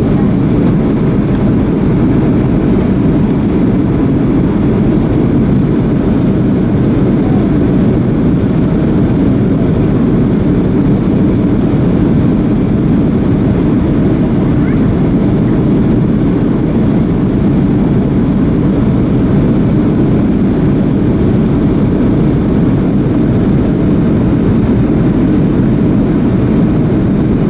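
Steady drone of a Boeing 737-300 in flight, heard from inside the passenger cabin: an even, low rush of airflow and engine noise.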